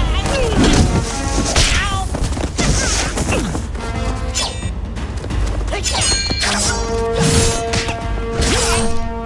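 Film fight soundtrack: a rapid series of punch and kick impact effects and swishes with grunts from the fighters. A music score runs beneath and settles onto long held notes in the second half.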